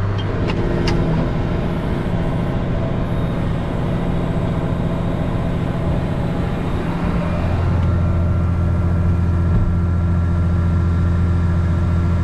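Tractor engine pulling a grain cart, running steadily with a deep hum. It gets louder about seven seconds in.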